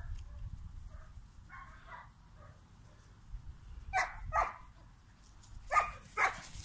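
German shepherd puppies barking in short, high yips: two quick pairs, one about four seconds in and another near the end, with fainter calls earlier.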